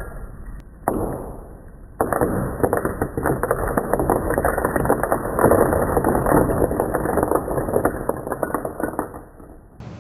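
Explosion: a short bang about a second in, then from about two seconds a loud crackling, rumbling blast that runs for about eight seconds and cuts off abruptly.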